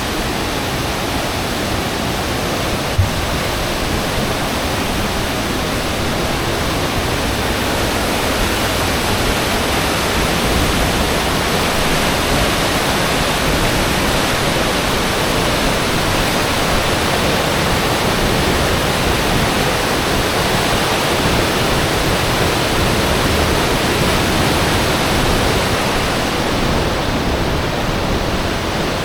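Steady rush of fast, turbulent water from a waterfall and its rough, muddy river, with a brief low thump about three seconds in.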